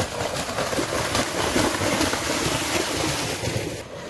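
A pair of racing bulls galloping through a flooded, muddy rice paddy, their hooves splashing and churning through the water and mud. The sound drops away suddenly near the end.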